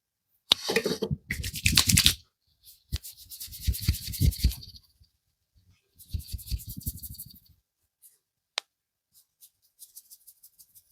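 Hands rubbing briskly over hair and scalp in a head massage, in three scrubbing bursts of a second or two each. A few faint light ticks and one sharp click follow near the end.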